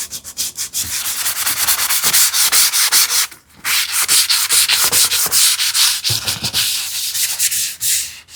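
Sandpaper rubbed quickly back and forth by hand on a wooden edge, easing a sharp inside corner of a furniture leg assembly. The strokes come in a fast, even rhythm, with a short pause a little over three seconds in.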